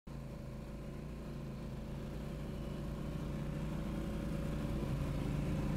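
Quad ATV engine running steadily, growing gradually louder.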